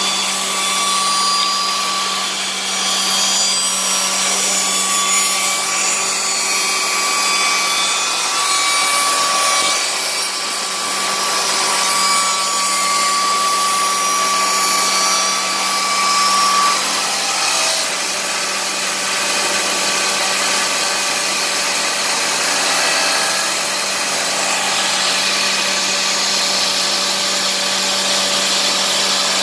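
MX-7203 automatic wood copy shaper running, its high-speed spindle cutters routing the profile of stacked wood blanks: a loud, steady machining noise over a constant hum, with a high steady tone that drops out about two-thirds of the way through.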